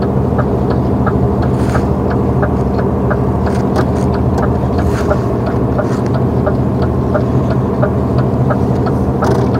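Truck engine running steadily under way on the highway, a constant low drone. A light ticking repeats about three times a second over it.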